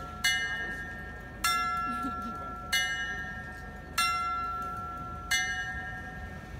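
Small bells of Bern's Zytglogge astronomical clock, rung by the jester figure at the top of the automaton as the show before the hour begins. Five clear strikes about a second and a quarter apart, each left to ring out and fade.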